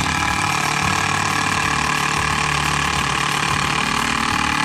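Brushed-motor AEG 158 Nm cordless impact driver running steadily under load, hammering a hex-head screw down into a timber board.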